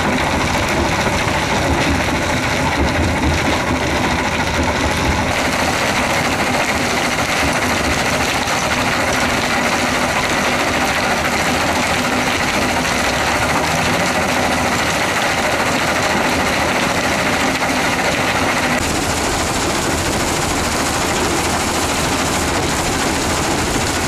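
Mobile screening plant running steadily: diesel engine and vibrating screen, with lumps of iron ore rattling down off the conveyors onto the stockpile.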